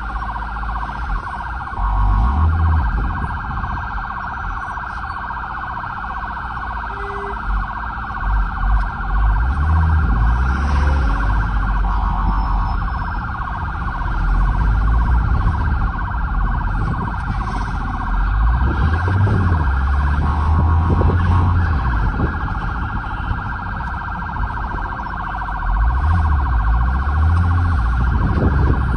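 Ambulance's electronic siren heard from inside the cab, sweeping up and down in a fast, repeating yelp and changing its pattern now and then. Under it is a low rumble that swells at times.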